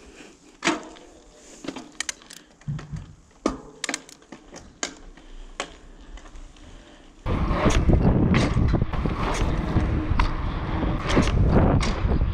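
A mountain bike being handled and rolled off slowly, giving scattered clicks and knocks. About seven seconds in, a loud rushing of wind on the action camera's microphone, mixed with tyre noise, starts suddenly as the bike picks up speed down the asphalt street.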